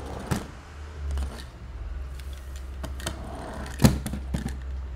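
Die-cast toy cars being handled: a few sharp clicks and knocks of small metal-and-plastic toys, the loudest just before four seconds in, over a low steady hum.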